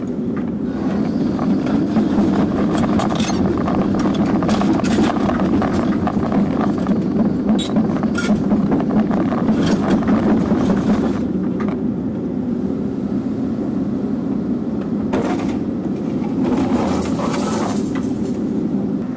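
Excavator engine running steadily under load, heard from inside the cab, with repeated knocks and scrapes of the bucket working soil and broken concrete. The knocking is busiest through the middle of the stretch and again near the end.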